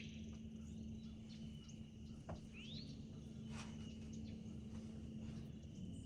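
Faint outdoor ambience: a steady high insect trill, with a few short bird chirps, one of them rising about halfway through, over a low steady hum.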